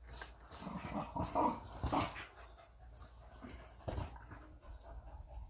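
Pet dog making short, irregular noises while tussling with a ball, loudest between about one and two seconds in, with a couple of sharp knocks.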